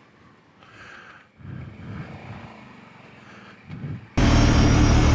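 Faint low rumbling, then about four seconds in a sudden jump to a Kawasaki Brute Force 750 ATV's V-twin engine running loud and steady.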